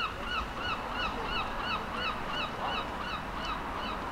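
A bird calling over and over in an evenly spaced series of short arched notes, about three a second, the calls thinning out near the end.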